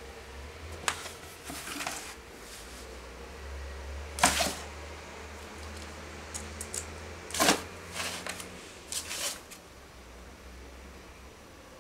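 Cardboard carton knocked and scraped about on a wooden floor by a cat pawing at it and pushing its head inside: scattered light taps and rustles, the loudest about four and seven and a half seconds in.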